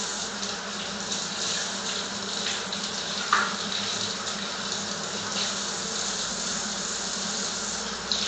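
Kitchen tap running, with the water splashing over zucchini being washed under it; a single clunk about three seconds in.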